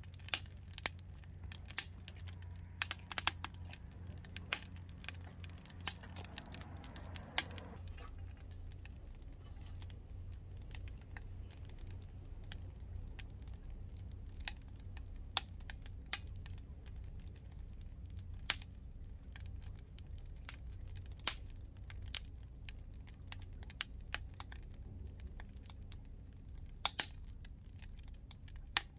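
Wood fire crackling in a homemade double-combustion fire pit, with irregular sharp pops over a low steady hum.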